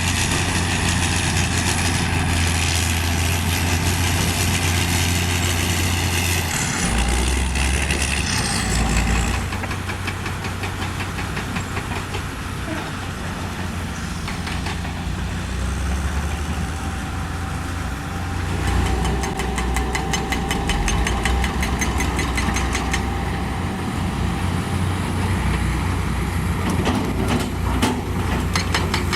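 Diesel engines of heavy earthmoving machinery running steadily, their note shifting a few times as the machines work. A fast, even clatter comes in for several seconds past the middle.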